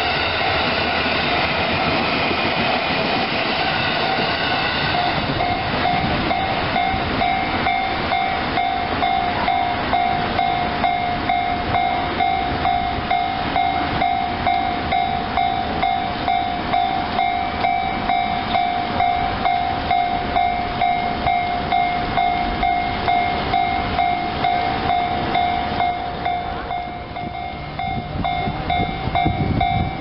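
A railway level-crossing warning bell rings in quick, even, repeating electronic dings. For the first five seconds or so a Yokosuka Line electric train rushes past over the crossing. The bell keeps ringing after the train has gone, the crossing still closed, and a low rumble rises near the end.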